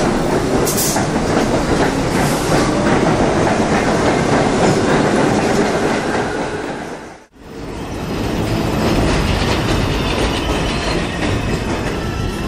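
Subway train running on the rails, its wheels clattering over the rail joints with a little wheel squeal. The sound cuts out for a moment about seven seconds in, then comes back at much the same level.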